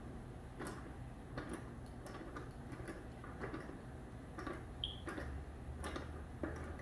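Faint, irregular clicks, roughly one a second, from a wrench tightening a hose fitting on a plastic pump sprayer, over a low steady hum.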